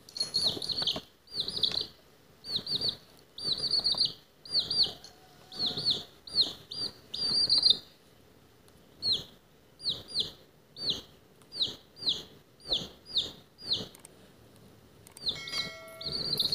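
Baby chick peeping: loud, high, falling peeps, first in quick runs, then after a short pause one at a time about twice a second.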